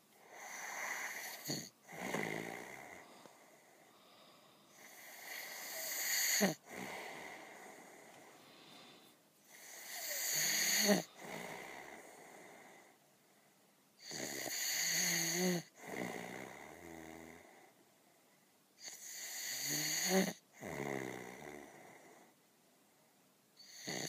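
Heavy snoring in a slow, regular rhythm: five rasping snores, about one every four to five seconds, each swelling in loudness and then cutting off, with a softer breath out between them.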